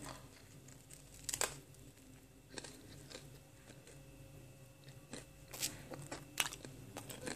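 Mouth chewing a crisp pan-toasted tortilla wrap topped with strawberry slices: scattered, irregular crunches, a little louder about a second in and again near the end.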